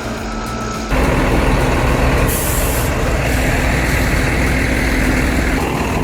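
Heavy diesel machinery running under load with a low engine drone, jumping suddenly louder about a second in. A short sharp hiss, like air being let off, sounds about two seconds later.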